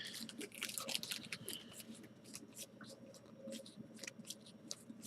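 Baseball trading cards being flipped through by hand one after another, giving faint, irregular soft clicks and papery slides as each card is moved to the back of the stack.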